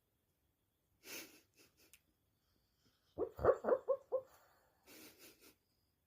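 A sleeping dog dreaming in a nightmare: a breathy huff, then a quick run of about five short yips, then more breathy huffs.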